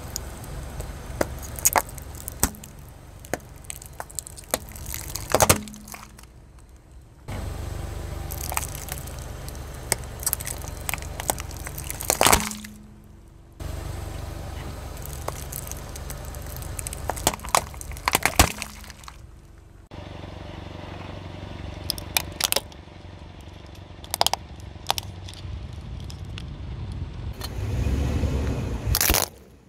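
A car tyre rolling slowly over small plastic slime barrels: a low steady vehicle rumble with repeated sharp cracks and pops as the plastic tubs split and burst.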